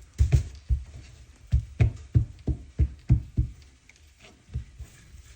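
A series of about ten dull knocks, most of them coming roughly three a second, with one more after a short pause.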